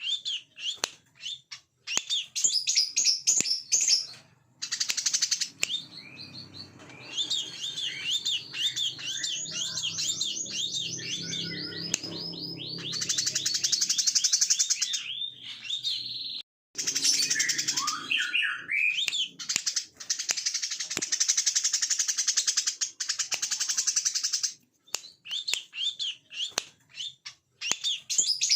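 Brown-throated sunbird singing in long runs of rapid high chirps and fast buzzing trills, broken by a few short pauses. A faint low hum lies under the middle part.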